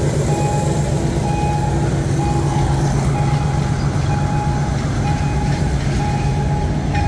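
Freight train of container flatcars rolling past with a steady low rumble. The level-crossing warning signal beeps about once a second over it, because the barriers are down.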